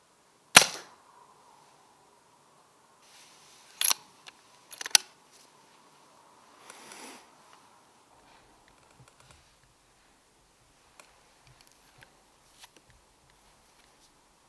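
Brocock Concept XR PCP air rifle firing a single shot about half a second in, a sharp crack with a short tail. Two more sharp clicks follow about three and four seconds later as the action is cycled, then faint clicks and handling rustle.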